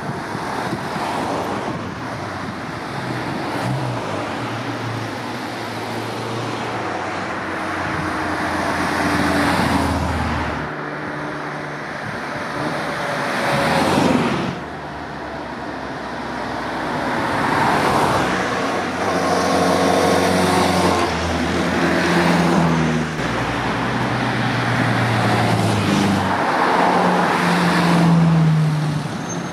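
Classic cars driving past one after another, several in turn, each engine swelling and fading as it goes by, with pitch rising and dropping through the gears.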